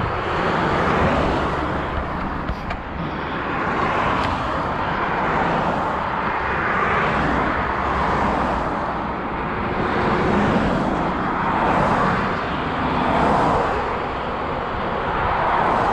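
Steady rushing road noise from a bicycle ridden along a road, with the sound of traffic, swelling and easing every couple of seconds.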